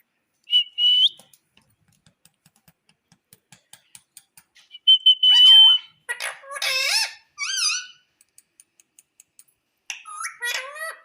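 Indian ringneck parakeet whistling and calling: a short steady whistle near the start, a longer steady whistle about five seconds in, then quick calls that glide up and down in pitch, with another burst of them near the end. Faint regular ticks sound in the gaps.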